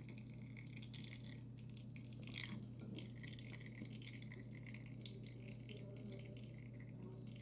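Faint dripping of water from a refrigerator's water dispenser as the last pressure drains out of the shut-off water line, over a steady low hum.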